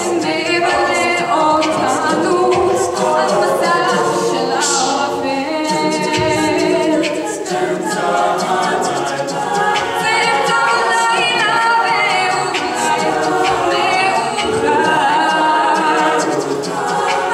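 Mixed-voice a cappella group singing in harmony, men's and women's voices together under a female lead voice, with no instruments, in a Hebrew song.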